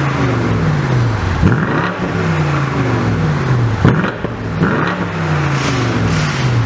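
2019 BMW M850i's twin-turbo V8 revved in sport mode through its stock exhaust, resonator still in place. The revs jump sharply several times and each time fall slowly back. The sound is called pretty badass but pretty stock.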